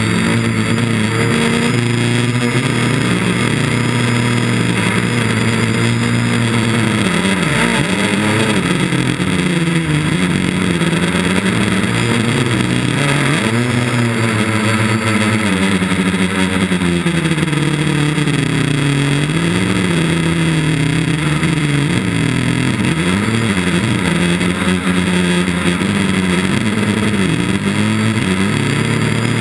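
Quadcopter's electric motors and propellers whirring, heard from the camera mounted on the craft itself: a steady, loud hum whose pitch rises and falls repeatedly as the throttle changes, steadier near the start and the end.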